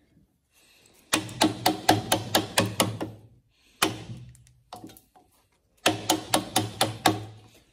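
Wooden mallet striking a 19 mm bevel-edge chisel, chopping the waste out of a cross halving joint: a quick run of about ten sharp knocks, a few single knocks, then another run of about seven.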